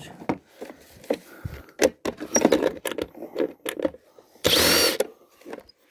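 Clicks, knocks and clatter of hand tools and the vacuum cleaner's plastic housing being handled during dismantling, with a short harsh rasping burst about four and a half seconds in.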